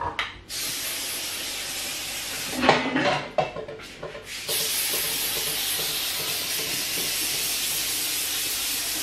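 Aerosol cooking spray hissing onto a baking tray in two long, even sprays that start and stop sharply, with a brief rattle of the tray being handled between them.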